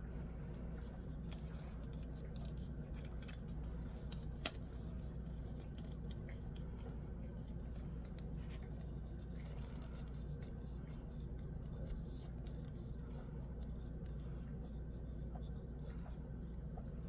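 Faint scattered clicks and light scraping from hands working at a box to open it, with one sharper click about four and a half seconds in, over a steady low hum.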